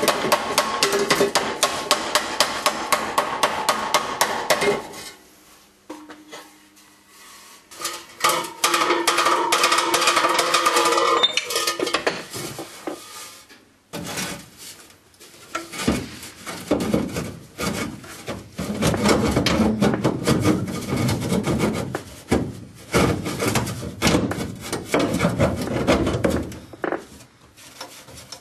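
Hammer striking a rusty steel exhaust pipe in long runs of rapid metallic blows, with short pauses between the runs.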